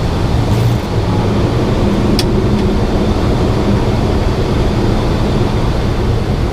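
Steady Boeing 737 flight-deck noise in flight: a dense rush of airflow and engine rumble with a low hum. A single sharp click about two seconds in.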